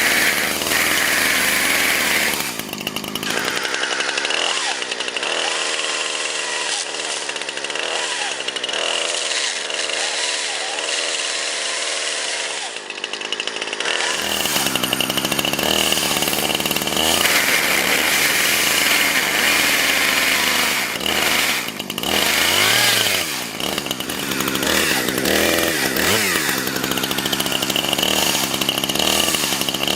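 Chainsaw running hard and cutting into a smartphone clamped in a vise, its engine note rising and falling as it revs and bites.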